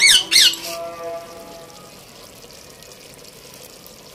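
Two loud, quick falling chirps right at the start over sustained tones of background music that fade out within the first second. After that comes soft wet pouring and dripping as a brown spice paste is squeezed by hand from a bowl into a pot of chicken.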